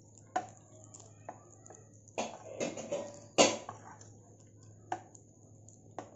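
Wooden spatula stirring rice in butter in a stainless steel pan: a string of separate scrapes and knocks against the pan, the loudest about three and a half seconds in.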